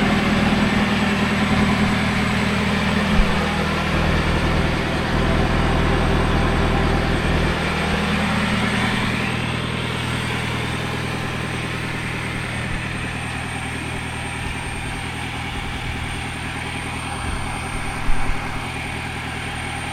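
Volkswagen Jetta engine idling steadily, its note rising briefly about eight seconds in, with a single knock near the end.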